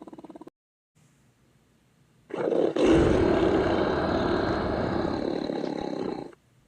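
Dinosaur roar sound effect: a pulsing growl breaks off about half a second in, and after a faint low rumble a loud, rough roar comes in at about two seconds and runs for about four seconds before cutting off abruptly.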